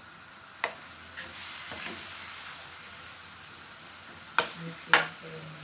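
Snails in their shells sizzling in a hot wok as they are stirred with a coconut-shell ladle, which makes no scraping on the pan. Over the steady sizzle the shells clack a few times, the two loudest clicks near the end.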